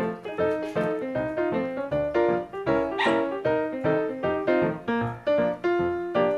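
Background instrumental music with quick, evenly paced notes.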